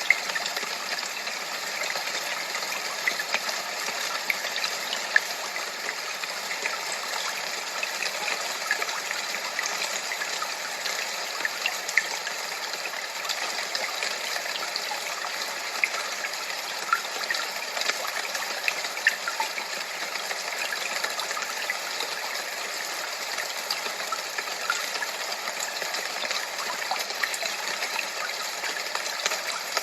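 Steady rush of running water: an even hiss dotted with small, quick splashy crackles, unchanging throughout.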